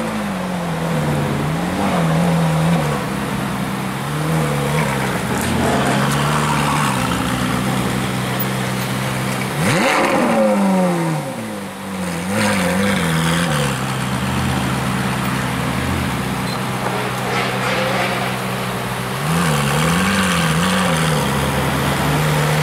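Ferrari 458 Italia's naturally aspirated V8 running at low revs as the car pulls away slowly, with short throttle blips several times and one sharper rev that rises and falls about ten seconds in.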